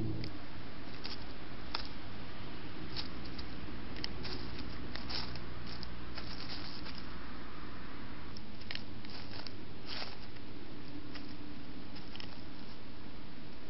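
Wood mice rustling in dry leaf litter and gnawing at food: irregular short clicks and scratches over the trail camera's steady hiss and hum.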